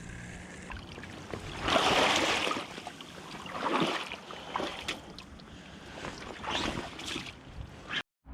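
Small waves washing onto a beach shoreline, three rushing swells about two seconds in, four seconds in and near the end, over a steady wash of water.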